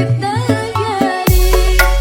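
Background music: a wavering melody over deep bass notes and regular drum hits, with a new bass note coming in a little past halfway.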